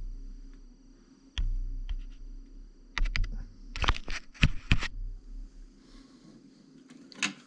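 Metal scissors and a straight edge being handled: a series of sharp clicks and light knocks, densest from about three to five seconds in, with a few dull bumps early on.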